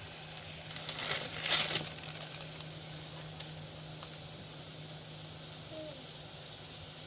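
Pot of water hissing on the boil, with a louder splashing crackle about a second in as a block of instant noodles goes into the water.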